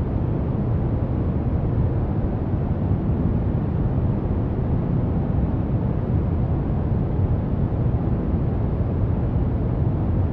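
Brown noise: a steady, deep rushing hiss, strongest in the bass and fading away toward the treble, unchanging throughout.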